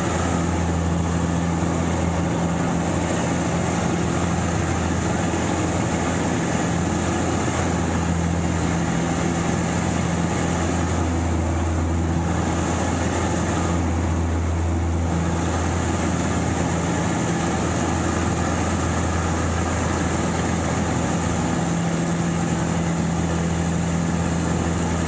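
Pitts Special S2A's four-cylinder Lycoming engine and propeller running in aerobatic flight, a steady drone with rushing wind noise, heard from inside the cockpit. The higher hiss thins for a few seconds about halfway through as the plane manoeuvres.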